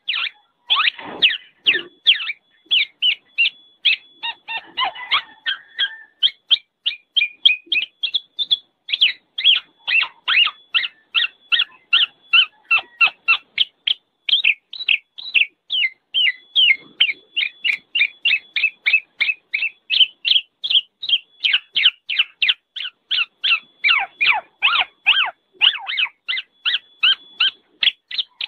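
Black-naped oriole (kepodang) calling noisily: a long unbroken run of short, sharp notes, about three or four a second, briefly denser and fuller near the start and again near the end.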